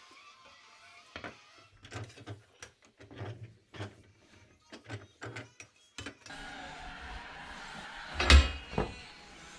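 Handling noise of tools being picked up and moved: scattered clicks and light knocks. About eight seconds in, two loud knocks come as a metal hand file is set down on a wooden workbench.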